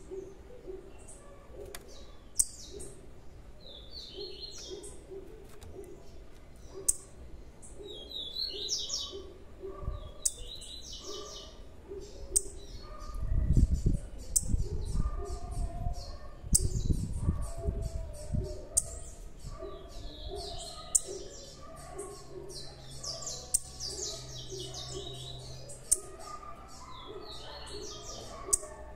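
Small cage birds chirping: many short, sharp, high calls scattered throughout, with a few brief twittering phrases. A few seconds of low muffled rumbling come around the middle.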